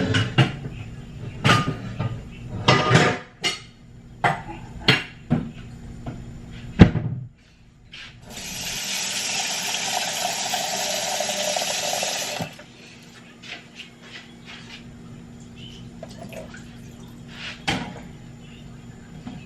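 Pots and utensils clattering with sharp knocks, then a kitchen tap running water into a pot for about four seconds and shutting off abruptly, filling it to boil noodles. A few light clinks follow.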